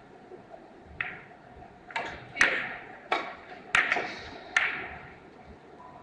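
A three-cushion carom shot: a soft knock of the cue tip on the cue ball, then about six sharp clicks over some two and a half seconds as the billiard balls strike each other and rebound off the cushions. The loudest click comes about two and a half seconds in.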